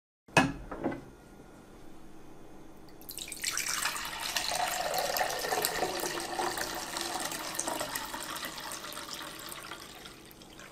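A short knock about half a second in, then freshly made green juice poured from a glass pitcher into a glass measuring cup, a steady splashing pour that begins about three seconds in and tails off near the end.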